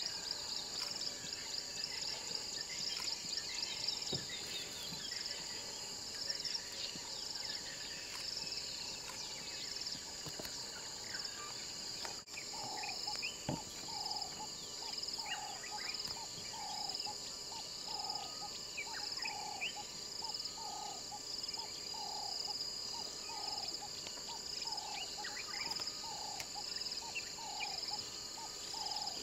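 Steady high-pitched insect chorus with scattered bird chirps; from about halfway a bird repeats a short, lower call roughly once a second.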